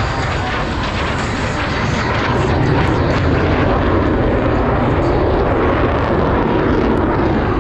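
Jet noise from Blue Angels F/A-18 Super Hornet fighters flying their display: a loud, steady roar of jet engines that swells slightly about two seconds in and holds.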